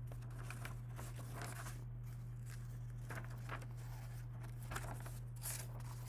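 Paper pages of a picture book rustling and crinkling as the book is handled and a page is turned, over a steady low hum.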